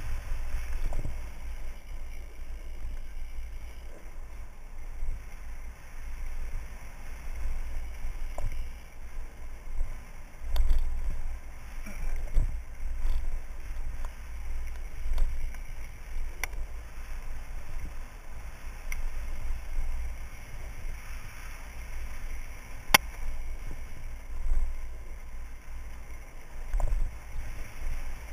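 Mountain bike rolling fast down a dirt singletrack, heard through a helmet camera. Wind rumbles unevenly on the microphone over the rattle of tyres and bike, with a few sharp clicks, the clearest late on.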